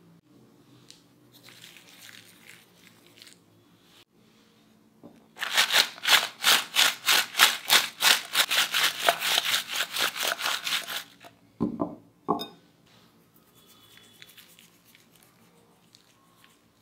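Fried potato cubes tossed in cheese powder inside a glass bowl: a fast, even rattle of about five strokes a second as the bowl is shaken, lasting some five seconds, then two sharp knocks.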